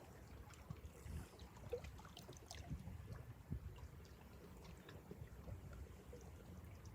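Faint lake water lapping and trickling, in small irregular splashes over a low rumble.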